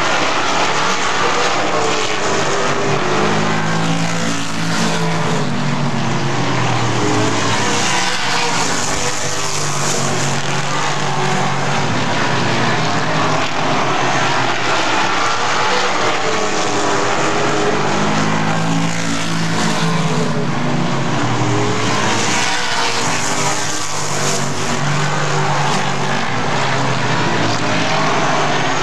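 A field of Super Late Model stock cars racing on a short oval, their V8 engines climbing in pitch along the straights and falling off into the turns, over and over every several seconds.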